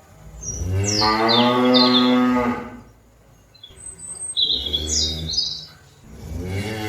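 Cattle mooing: one long moo, then a lower, shorter moo a couple of seconds later, and a third starting near the end.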